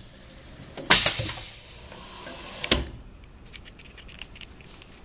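MPS TF-100 thick-film screen printer running a flood print cycle: a sudden hiss of air about a second in, a steady mechanical running noise as the print head travels, and a clunk near three seconds, followed by faint ticking.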